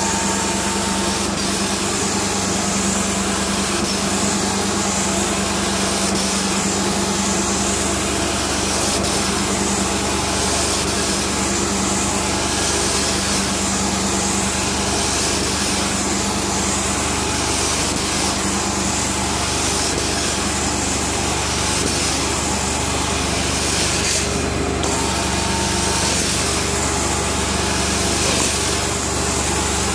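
Truck-mounted carpet cleaning machine running steadily, with the hiss of hot water spraying from a Mytee 8300EZ two-jet wand and the rush of its vacuum suction as the wand is drawn across carpet. The hiss breaks off for a moment once near the end.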